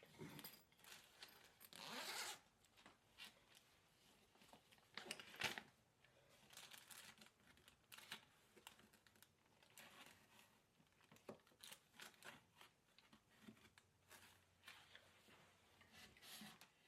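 Faint, intermittent rustling, scraping and light clicks of chair parts being handled and fitted together during flat-pack chair assembly, with a longer rasp about two seconds in and another about five seconds in.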